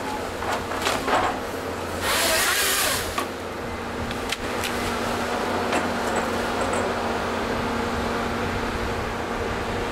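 Volvo EC210 excavator's diesel engine running steadily while its LogMax 7000XT harvester head processes a eucalyptus stem. There are sharp cracks and snaps in the first second or so as the head grips and delimbs. About two seconds in comes a loud rasp lasting about a second as the head's chain saw cuts through the log.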